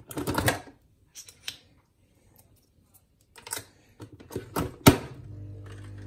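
Nespresso capsule machine being worked by hand: a run of plastic clicks and knocks from its top lever, ending in a sharp snap about five seconds in. Right after, the machine's pump starts with a steady buzzing hum as brewing begins.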